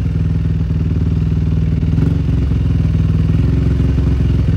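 Dirt bike engine running at low, steady revs, with no revving up or down.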